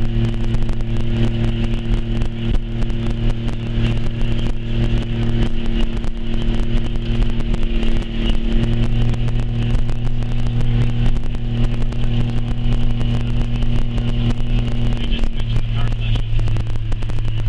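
Steady drone of a car driving, heard from inside the cabin: a constant engine and road hum under a broad rushing noise.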